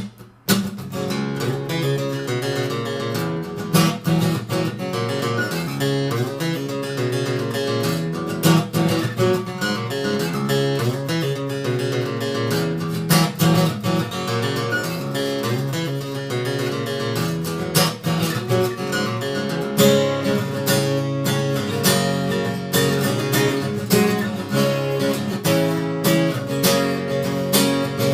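Acoustic guitar played with strummed chords.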